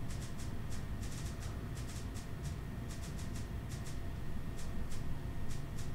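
Light, irregular ticking of a computer mouse scroll wheel as a web page is scrolled, several ticks a second, over a steady low room hum.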